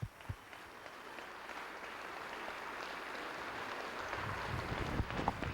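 Dinner audience applauding, the clapping swelling steadily.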